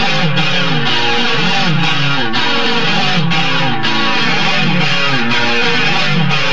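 Solid-body electric guitar playing continuously, fast picked notes in repeated rising and falling runs.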